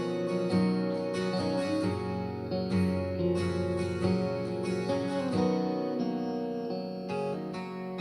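Recorded song with acoustic guitar playing an instrumental passage with no singing, played back through a portable Bluetooth speaker for a sound test.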